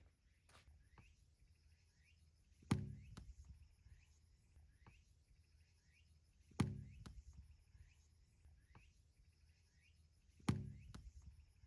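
Tennis ball struck by a racket three times, about four seconds apart, during a rally, with fainter knocks of the ball bouncing and being hit farther off in between.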